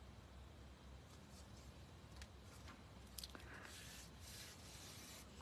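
Near silence, with a few faint ticks and soft rustles of paper being handled and pressed down.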